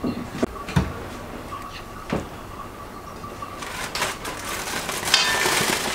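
A few light knocks, then aluminium foil crinkling from a few seconds in as it is pinched and lifted off a frying pan, the rustle growing louder.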